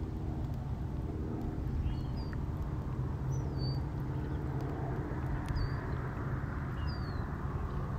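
Open-field ambience: a steady low rumble with a hiss over it, and about five short, high bird chirps scattered through it.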